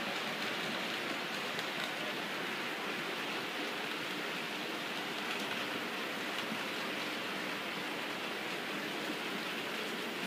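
OO gauge model trains running on the layout's track: a steady noise of wheels rolling on the rails and small motors running.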